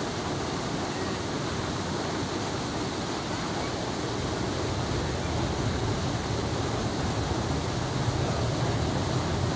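Airliner engines heard across open fields as it rolls down the runway: a steady rushing roar that grows a little louder about halfway through.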